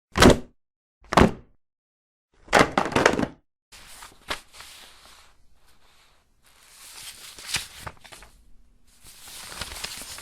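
Paper handling sounds: three short, sharp snaps of paper about a second apart, then a louder crackling flurry. After that come softer stretches of rustling and crinkling paper.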